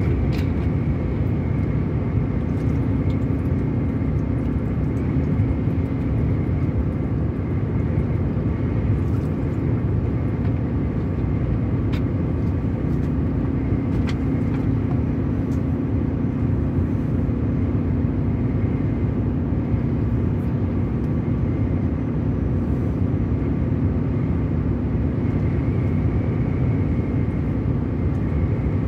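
A road vehicle driving at a steady speed: continuous tyre and road noise under a steady engine hum, with an occasional faint click.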